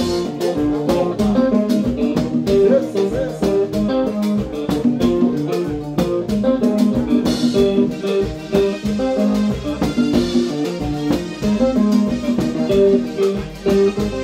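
Live band music: a Stratocaster-style electric guitar plays quick melodic runs over bass and a steady drum beat.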